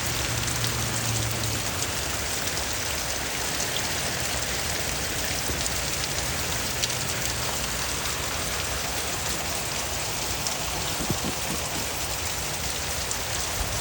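Steady rain falling on surfaces, an even hiss with individual drops ticking here and there.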